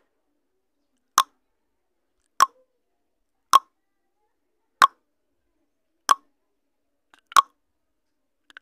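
Countdown timer sound effect: a short, sharp tick repeating evenly about once every 1.2 seconds.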